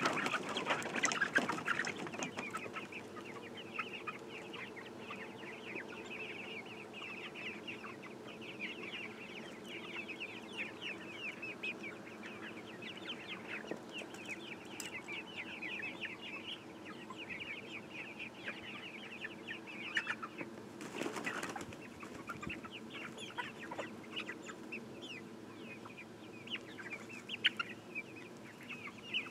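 A flock of hens clucking and calling busily and without a break, with a brief louder rustle about twenty seconds in.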